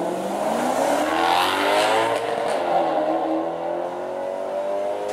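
Maserati GranCabrio's V8 engine revving hard as the car accelerates away. Its pitch climbs, drops back about halfway through at a gear change, then climbs again.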